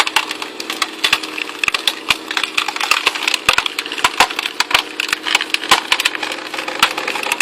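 A green log cracking and splintering as it is forced onto the turning screw cone of a Stickler-type wood splitter: a rapid, irregular run of sharp cracks over the steady hum of the engine driving the cone.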